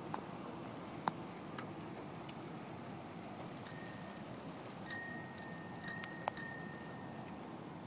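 Bicycle bell rung about five times in the second half, each a bright ding that rings on briefly, over a steady low rush of riding along the path. A few faint clicks come before the first ring.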